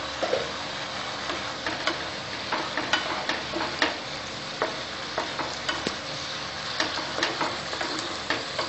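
A spatula stirring thick, simmering pointed-gourd curry gravy in a pan: irregular clicks and scrapes against the pan over a steady sizzle.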